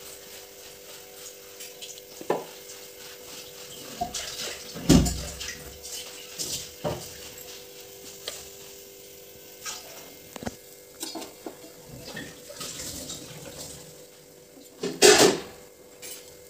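Scattered clinks and knocks of metal kitchen utensils against a dosa griddle and pans, over a faint steady sizzle. The loudest clatter comes about five seconds in and again near the end, as a spatula is brought onto the griddle.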